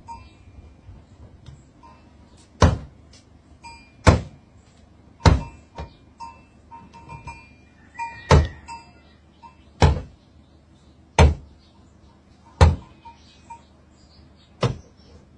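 A goat butting a car's door panel with its head and horns: about eight sharp metallic thuds, roughly one every one to two seconds. The goat is charging its own reflection in the glossy dark paintwork.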